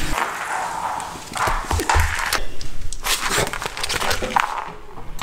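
A golden retriever puppy playing on a wooden floor: irregular small clicks and scuffs of its paws and claws on the boards, with some rustling.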